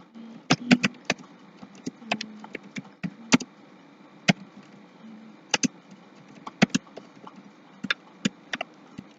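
Irregular keystrokes clicking on a computer keyboard as a command is typed, over a steady faint hiss.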